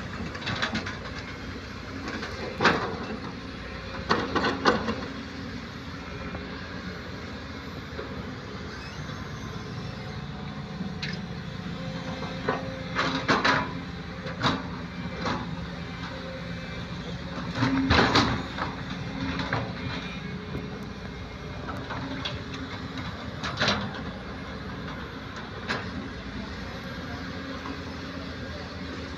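Hitachi hydraulic excavator's diesel engine running steadily under load while digging, with several sharp knocks and clanks spread through.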